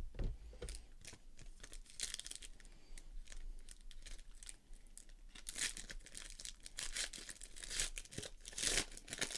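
Foil wrapper of a Panini Preferred basketball card pack being torn open and crinkled by hand, in irregular crackling bursts that grow stronger in the second half.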